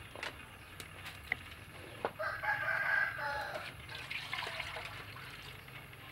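A rooster crowing once, a call of about a second and a half starting about two seconds in and the loudest sound here. Soon after comes a short splash of water poured from a plastic scoop into a wok.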